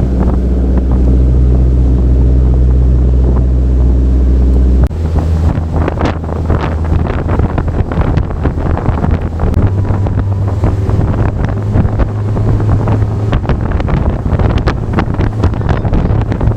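Boat engine running steadily at cruising speed. About five seconds in the sound changes abruptly: wind buffets the microphone with crackling gusts and water splashes against the hull over a lower engine drone.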